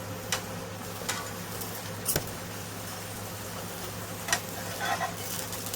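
A pancake frying in a pan with a faint sizzle over a steady low hum, broken by a few light clicks and taps.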